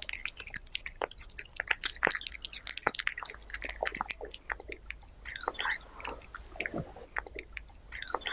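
A cat chewing a piece of raw meat, close up, with quick, irregular wet clicks and bites.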